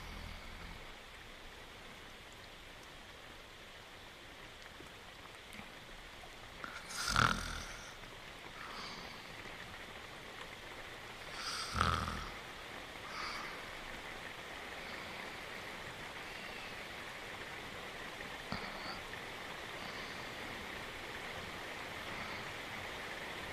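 A cartoon dog snoring, with two loud snores about five seconds apart and fainter breathing sounds after them, over a steady hiss of rain.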